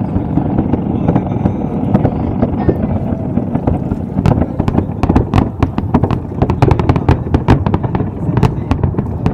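Fireworks display: a steady low rumble of launches and bursts, joined from about three seconds in by a dense run of sharp cracks and pops that grows thicker toward the end.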